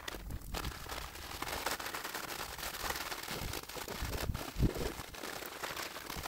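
Sand mixed with sodium silicate being rubbed and spread by a gloved hand across a flat board, a dense gritty scraping full of fine crackles. There are a couple of dull low bumps about four and a half seconds in.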